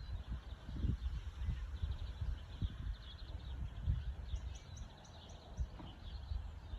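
Birds chirping and twittering, many short high notes overlapping, with a brighter run of quick high chirps about four to five seconds in. Under them is an irregular low rumble, strongest in the first second or so.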